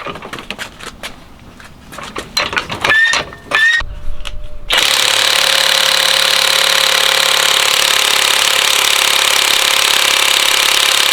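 Alloyman 20V brushless cordless 1/2-inch impact wrench hammering continuously for about eight seconds, starting about five seconds in. Before it starts there are short clanks and clicks of the socket and tool being handled.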